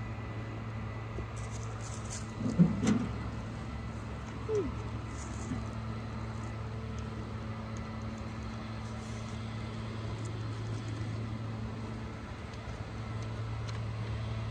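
A steady low hum, with a short sharp knock and a few brief pitched sounds a little under three seconds in.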